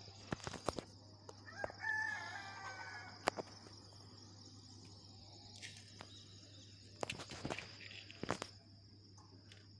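A rooster crowing once, a single drawn-out crow beginning about one and a half seconds in. Scattered sharp clicks and knocks come before it and again later, over a steady faint high-pitched whine.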